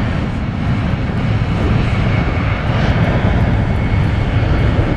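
Boeing 767-400ER's two General Electric CF6-80C2 turbofans at takeoff power on the takeoff roll: a loud, steady, deep rumble of jet noise that grows slightly louder about halfway through, with a faint high whine over it.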